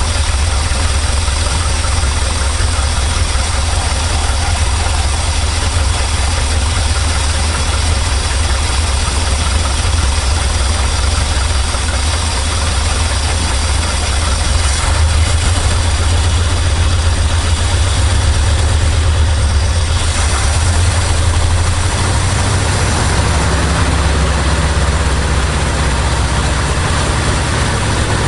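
Chevrolet C60 truck's gasoline engine running steadily at idle on its freshly rebuilt carburetor, with a shift in its note about twenty seconds in.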